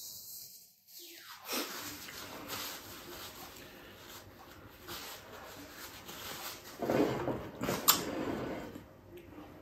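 A man sniffling and blowing his nose into a paper napkin, with the napkin rustling as he wipes and folds it; two louder nasal bursts come about seven and eight seconds in.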